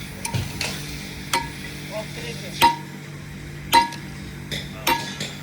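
Hammer striking the steel parts of a heavy electric motor being taken apart: four sharp ringing blows about a second apart, with lighter metal clinks between them.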